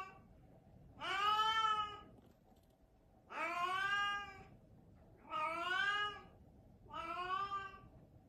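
A cat meowing over and over: four long meows about two seconds apart, each arching slightly up and down in pitch, with the tail of another right at the start.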